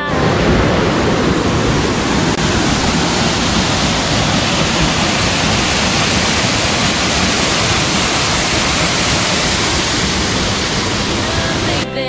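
Small waterfall pouring into a rock pool: a loud, steady rush of falling water.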